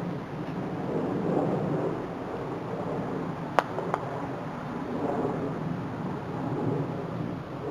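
Wind buffeting an outdoor microphone: a low, uneven rumble that swells and fades. About three and a half seconds in come two sharp knocks, a third of a second apart.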